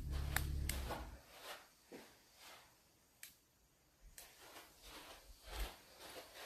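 Footsteps and soft knocks in a small, quiet room, with a low rumble for about the first second and a single sharp click about three seconds in.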